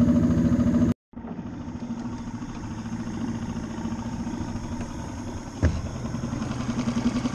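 A new 3.5-horsepower four-stroke outboard motor, still being broken in, runs steadily under way. The sound cuts out for a moment about a second in, and a single sharp knock comes about five and a half seconds in.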